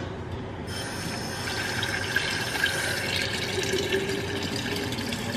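Kitchen tap running water steadily, starting about a second in.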